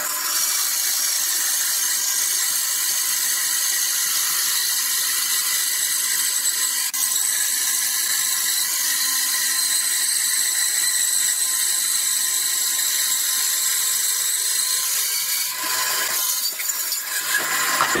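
Bandsaw resawing a thick walnut block: a steady, high-pitched hiss of the blade cutting through the wood, which shifts briefly in the last couple of seconds.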